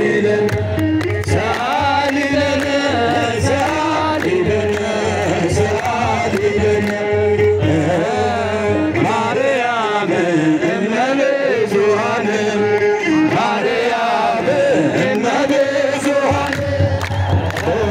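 A group of men chanting an Ethiopian Orthodox Tewahido hymn (mezmur) together in wavering, gliding melodies, with kebero drum beats.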